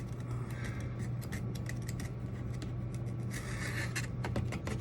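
Scratching, rubbing and light tapping of hands and a marker working over foam scenery while marking out where a model railway trestle will sit, with a denser scratchy stretch about three and a half seconds in. A steady low hum runs underneath.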